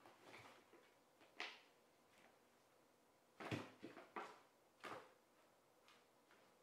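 A small cardboard carton scuffing and rustling against a smooth floor as a cat pushes its head inside and shoves it along: a handful of short scrapes and bumps, the loudest cluster a little past the middle.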